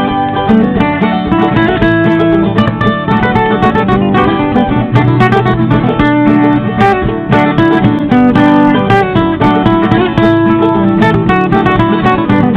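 Intro background music led by plucked acoustic guitar, which cuts off abruptly at the end.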